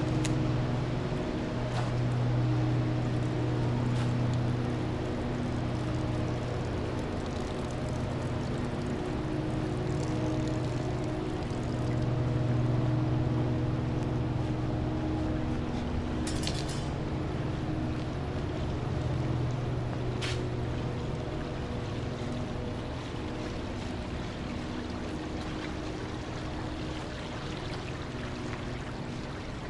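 Water running along a narrow concrete drainage channel, under a steady low mechanical hum that fades in and out, with a couple of brief clicks.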